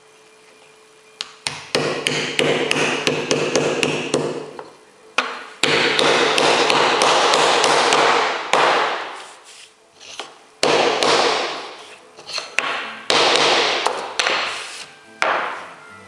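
A wooden block knocked and worked over round repair patches set into a plywood formwork board, bedding them flush. It makes runs of sharp knocks, several a second, broken by stretches of steady rubbing noise lasting a second or more.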